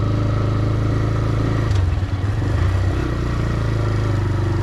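Motorcycle engine running steadily at low speed while being ridden along a dirt track. The engine note shifts briefly about two seconds in.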